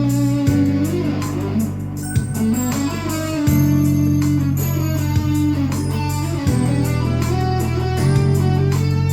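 Guitar playing a single-note melody with bent notes over held low chords that change every few seconds, about half a second, three and a half, six and a half, and eight seconds in.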